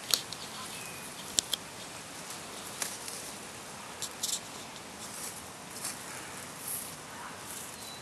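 Scattered sharp clicks and crackles of dry plant stems as a grey crowned crane pecks and pulls at them, over a steady outdoor hiss. A faint short whistle sounds about a second in.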